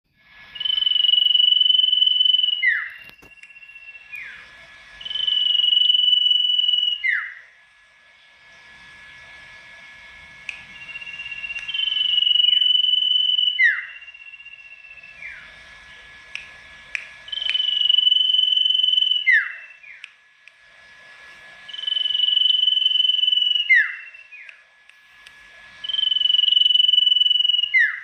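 A sirtu (golden-bellied gerygone) singing a loud phrase six times. Each phrase is a long high whistle held level, ending in a quick falling note.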